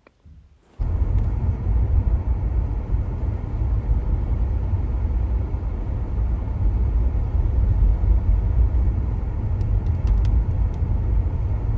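A car being driven, with a steady low rumble of road and engine noise that starts about a second in after a brief near-silence. A few faint ticks come near the end.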